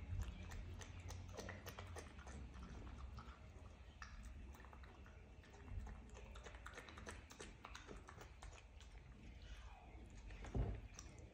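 Faint, scattered rustling and clicking from two kittens play-fighting on a carpeted cat-tree platform, pawing and biting at a small packet, with a soft bump shortly before the end.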